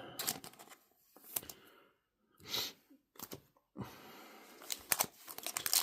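Trading cards and plastic card sleeves being handled: scattered soft clicks and rustles, with a short hiss about two and a half seconds in.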